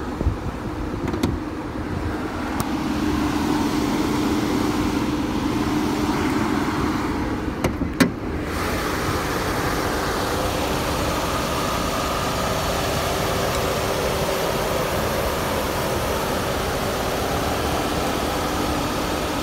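Oldsmobile 3.5-litre Twin Cam V6 idling steadily, with a sharp click about eight seconds in as the hood is opened, after which the engine is heard more plainly. The idle is even and sounds healthy.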